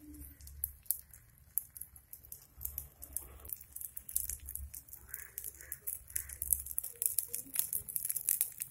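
Egg paniyaram batter frying in hot oil in a cast-iron paniyaram pan, crackling and popping, the pops coming thicker in the second half.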